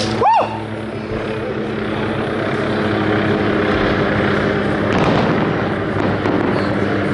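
Fireworks going off: a dense crackling wash with a sharp report about five seconds in, over a steady low hum.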